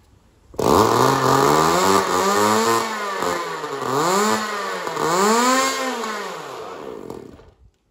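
Tether car's small two-stroke glow engine running and being revved, its pitch rising and falling about once a second, then cutting off abruptly near the end.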